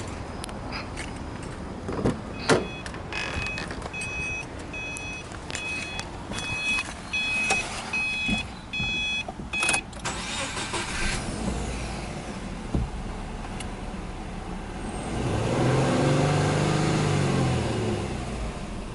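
Car door clunks, then a dashboard warning chime beeps repeatedly, about one and a half beeps a second. About fifteen seconds in, the Subaru Impreza S-GT's EJ20 turbocharged flat-four starts, its revs rising and easing back into a fast idle.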